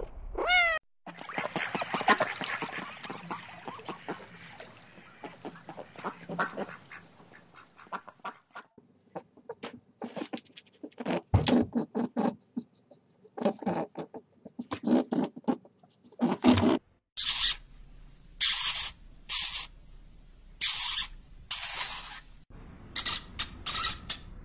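Bird calls: a dense chatter of calls for the first several seconds, then sparser single calls, then a run of loud, harsh repeated calls over the last several seconds.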